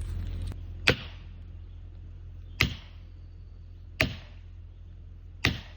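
Four sharp strikes, each with a short fading tail, spaced about one and a half seconds apart over a steady low hum.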